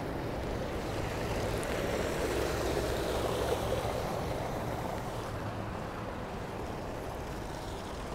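Wind buffeting the microphone, heading straight into it; a gust builds over the first few seconds, peaks about three and a half seconds in, then eases off.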